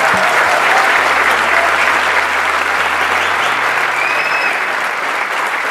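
Large audience applauding and laughing, the clapping loudest in the first seconds and easing slightly toward the end. A short high whistle sounds about four seconds in.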